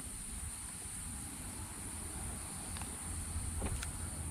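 Steady high-pitched insect chorus, with a low rumble underneath and a couple of faint clicks a little past halfway.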